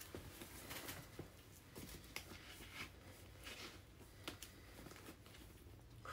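Faint rustling and a few light clicks of leather and a phone being handled, as a large smartphone is worked into the back slip pocket of a quilted leather shoulder bag.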